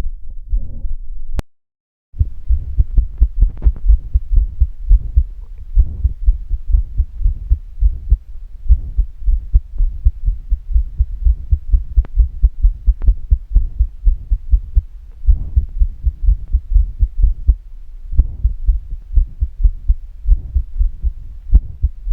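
Heart sounds picked up through a smartphone stethoscope pressed to the chest: a beating heart with a systolic murmur, low thuds repeating at a steady pulse. There is a brief break about a second and a half in, where one recording ends and the next begins.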